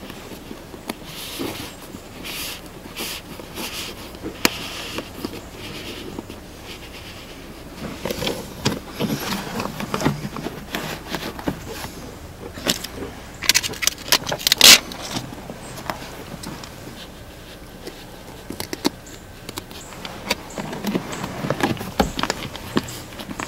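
Husky Liners WeatherBeater molded floor liner being shifted and pressed into place in a pickup's rear footwell by hand: scattered scrapes, rubs and light knocks, with a quick cluster of sharp clicks about halfway through.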